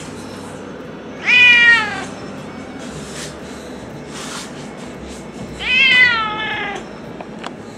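Domestic tabby cat meowing twice, each meow ending with a falling pitch; the second, a few seconds later, is the longer.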